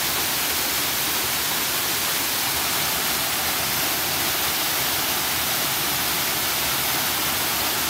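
Waterfall rushing: a steady, loud wash of falling water, loud enough to drown out a voice.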